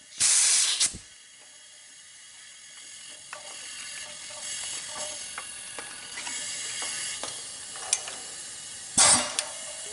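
Compressed air hose coupled to a leak-down adapter in a Briggs & Stratton cylinder: a short loud blast of air hiss as it connects, then a faint steady hiss of air feeding the cylinder that slowly grows, with small clicks. About nine seconds in, a loud rush of air as a valve is pushed open.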